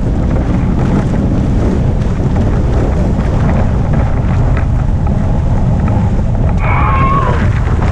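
Wind buffeting the microphone and water rushing and splashing past the hulls of a Hobie Cat catamaran sailing fast, steady and loud. A short wavering high tone sounds about seven seconds in.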